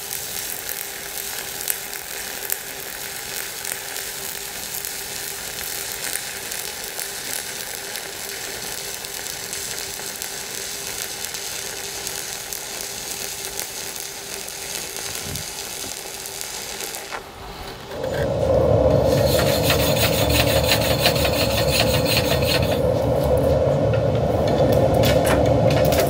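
Stick-welding arc running a 7018 electrode on steel plate at about 120 amps, giving a steady crackling sizzle with scattered sharp pops. About 18 seconds in, a louder, steadier sound with a low hum takes over.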